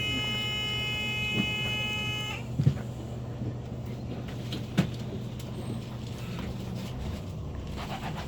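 Coach bus interior with the engine idling as a steady low hum. At the start a steady electronic tone sounds for about two and a half seconds, then a few light knocks follow.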